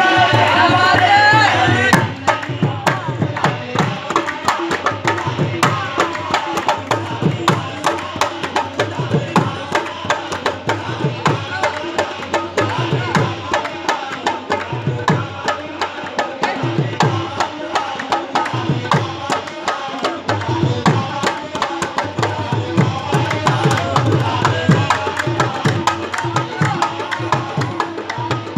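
Qawwali music: steady tabla-style hand-drum rhythm with sharp claps over it. Group singing is heard for the first couple of seconds, after which the drumming and clapping carry on with little voice.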